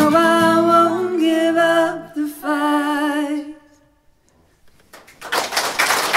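The final held notes of a folk song: singing voices and bowed fiddle with vibrato over acoustic guitar, fading out about three and a half seconds in. After a short silence, audience applause starts near the end.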